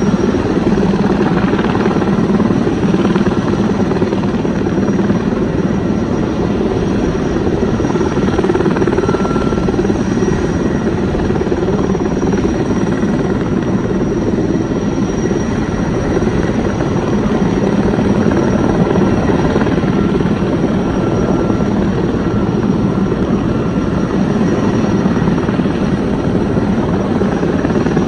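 Erickson S-64 Air-Crane heavy-lift helicopter hovering, its twin-turbine engines and rotors running with a steady, unbroken noise and a faint high whine above it.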